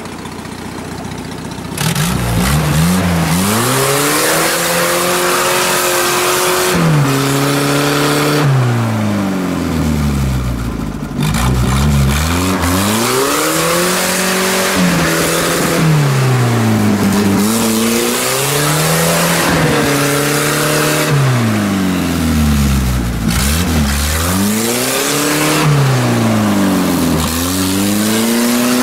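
Lifted off-road 4x4's engine revving hard again and again as it churns through deep mud and water, the pitch climbing and dropping every few seconds. Under it there is a steady noise of mud and water being thrown up. Everything gets much louder about two seconds in.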